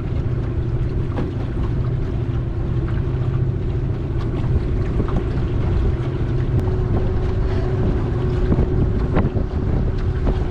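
A boat's motor running steadily under way, with wind buffeting the microphone.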